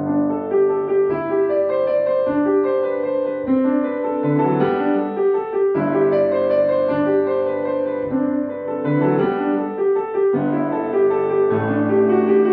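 Grand piano played solo: a piece begins right at the start after silence and continues with a steady stream of notes over held lower notes.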